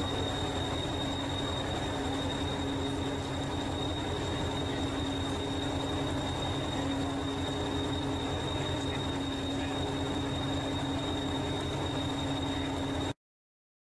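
Hastings diesel-electric multiple unit 1001 standing with its English Electric diesel engine idling: a steady low throb with a constant high-pitched whine over it. The sound cuts off abruptly about thirteen seconds in.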